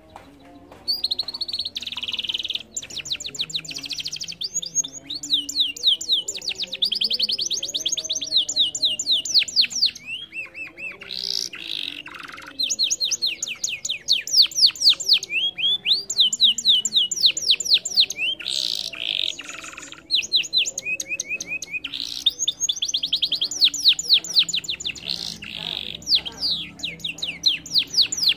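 Domestic canary singing a long song of rapid trills and rolls, fast runs of repeated high notes with a few short breaks.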